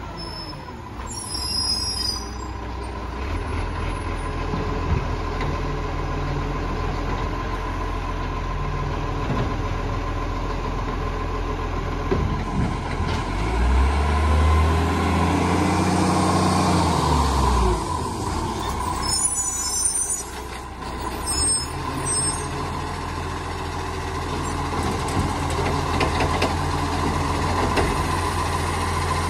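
Diesel engine of a side-loading garbage truck driving up the street and past, growing louder as it comes closer; the engine revs rise and fall about halfway through.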